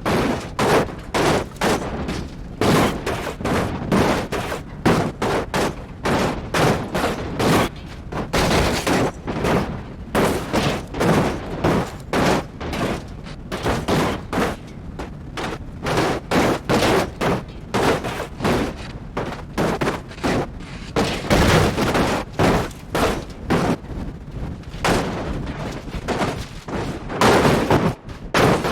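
A rapid, irregular string of sharp cracks and bangs, several a second, some louder than others.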